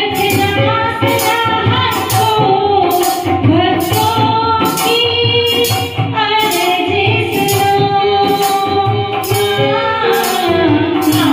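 A woman sings a Hindi devotional bhajan into a microphone, her melody wavering and held on long notes, over electronic keyboard backing with a steady percussion beat of sharp hits, about three a second.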